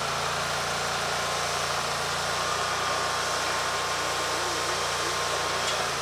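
Timber King 1620 bandsaw sawmill's engine idling steadily, with a thin steady whine above the engine note.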